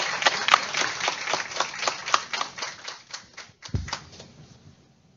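Audience applause, many quick claps that thin out and fade away, with a single low thud near the end.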